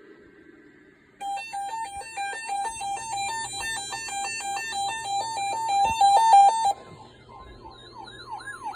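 Electronic emergency-alert tones for a Required Weekly Test on weather radio. First about five seconds of rapid stepping beeps, then from about seven seconds in a repeating rising siren-like sweep, about two a second.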